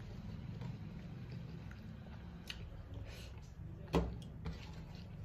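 Fingers mixing rice and curry on a steel plate, with faint scattered clicks and one sharp knock about four seconds in, over a steady low hum.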